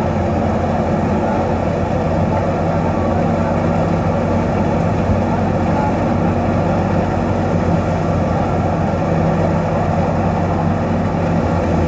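A 640 tractor's diesel engine running steadily, driving a wheat thresher, with the thresher's steady noise mixed in.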